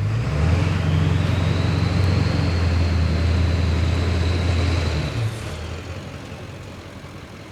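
A motor vehicle's engine running close by: a steady low drone for about five seconds that then fades away.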